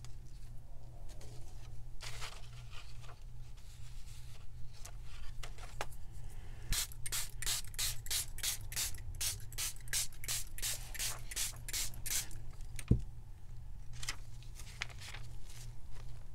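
Trigger spray bottle of coffee-and-tea dye squirting in a quick run of about sixteen hissing sprays, roughly three a second, for about five seconds. A single sharp thump follows.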